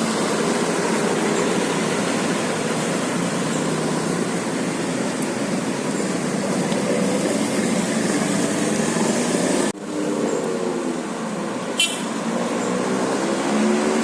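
Steady vehicle engine and road noise with no horn sounding, broken by a sudden cut about ten seconds in.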